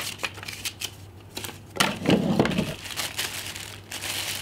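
Packaging being handled as items come out of a box: irregular crinkling rustles and small clicks, busiest about two seconds in.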